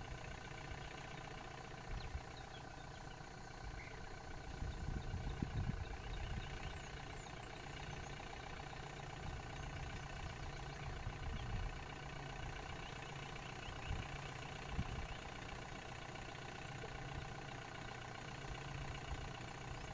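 A vehicle's engine idling steadily, with a few irregular low rumbles about five seconds in and again later.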